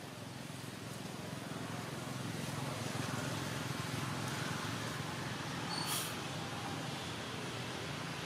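Steady low rumbling background noise that builds over the first three seconds, with one brief high click about six seconds in.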